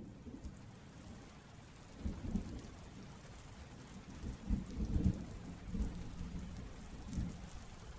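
Heavy rain sound effect that sets in at the start, a steady hiss, with low rolling thunder rumbling several times and loudest about halfway through.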